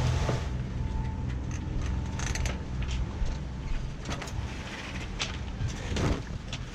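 Steady low rush of wind and water on a sailing catamaran, with scattered clicks and knocks as halyard lines and clips are handled at the mast.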